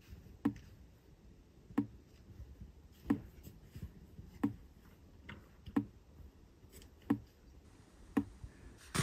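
Maple sap dripping from a freshly set plastic spile into an empty plastic bucket: single drops land about every 1.3 seconds, each a short, sharp tick. The steady dripping is the sign that the sap is running.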